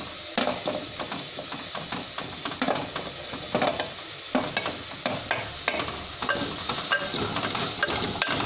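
Wooden spatula scraping chopped spring onions out of a steel bowl into a clay pot, then stirring them into leafy greens frying in oil. Repeated scrapes and knocks sound over a steady sizzle.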